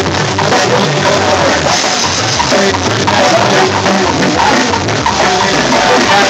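A live duranguense band playing loud, with keyboard, saxophone and drum kit.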